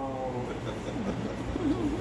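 A voice warbling up and down in pitch several times a second, starting about a second in, over a low steady hum.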